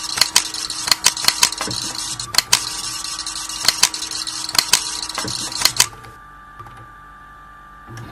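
Sharp mechanical clicks, often in pairs at irregular intervals, over a hiss and a steady electrical hum. About six seconds in the clicks stop and only a quieter hum is left.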